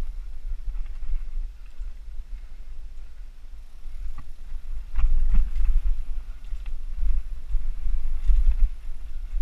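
Mountain bike riding fast down rocky forest singletrack: a heavy low rumble of wind and vibration on the bike-mounted camera, with sharp knocks and rattles as the tyres hit rocks and roots, louder and busier over the second half.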